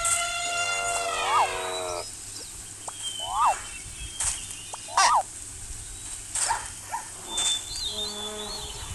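Animal calls: a long call that falls in pitch over the first two seconds, then short chirps and sharp clicks, with another brief pitched call near the end.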